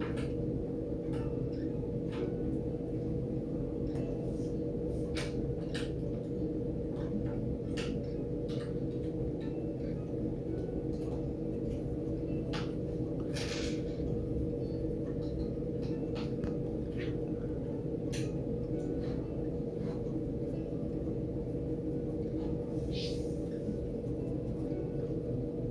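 Steady low electrical or room hum, with scattered light clicks and a couple of brief scrubbing sounds from a brush mixing watercolour paint in a palette.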